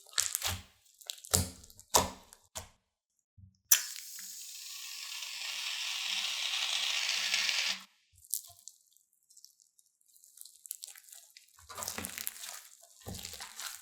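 Crunchy slime being squeezed and worked, giving sharp crackles and pops. In the middle a steady hiss starts suddenly and runs for about four seconds, then the crackling resumes near the end.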